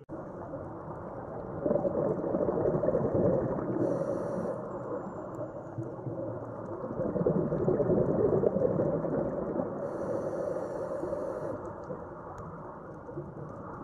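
Muffled underwater sound picked up by a diver's camera: scuba breathing, with two long swells of rumbling exhaled bubbles and a brief high hiss of regulator inhalation after each.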